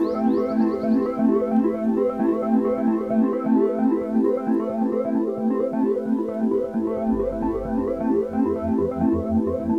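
Background music: a keyboard-and-synthesizer tune with a steady repeating pattern, a low bass pulse coming in about seven seconds in.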